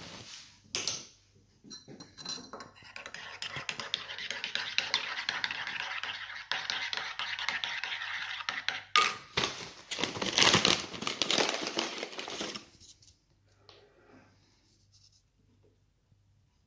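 A metal spoon stirring milky coffee in a ceramic mug, scraping and clinking quickly against the sides, with a louder run of clinks a few seconds before it stops.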